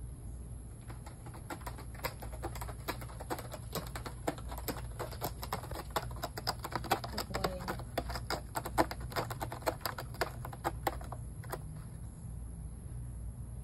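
Cat working a corrugated cardboard scratcher: a fast, irregular run of dry ticks and scrapes as claws catch and tear the cardboard. It thickens in the middle and stops about eleven seconds in.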